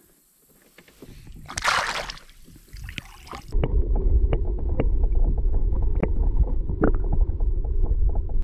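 A brief splash of water, then, about three and a half seconds in, a loud muffled rumble of water with everything above the low end gone, dotted with scattered clicks, as heard with the microphone under the water.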